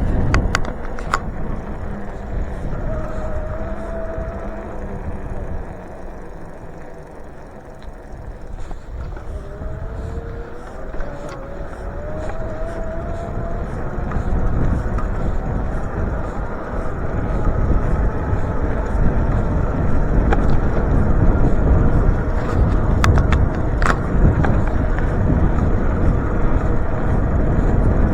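Wind buffeting the microphone and road rumble during a bicycle ride. The rumble eases off about six seconds in and builds again, with a faint rising whine near the middle and a few sharp clicks.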